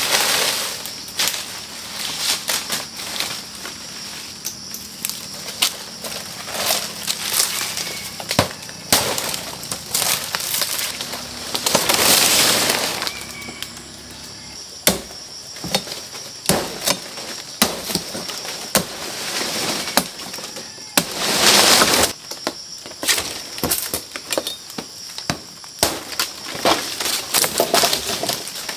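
Irregular clattering: many quick clicks, knocks and cracks of hands working dry material, with two longer rustling swishes about twelve and twenty-one seconds in.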